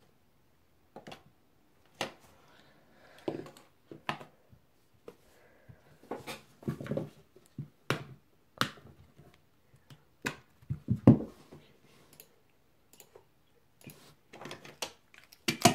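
A smartphone in its case being handled and set down on a playmat by hand: scattered clicks, taps and knocks at uneven intervals, the loudest about eleven seconds in.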